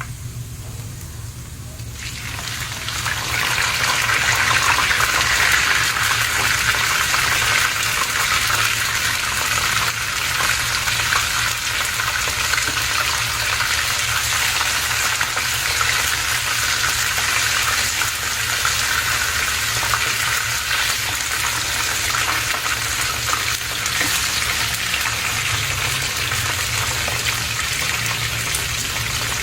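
Rat meat frying in hot oil in a pan, sizzling steadily. The sizzle starts about two seconds in and swells to full strength within a couple of seconds, then holds.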